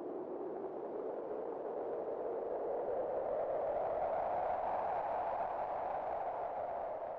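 Wind blowing in a long gust: a hollow, whistling whoosh that slowly rises in pitch and grows louder through the first few seconds, then eases a little near the end.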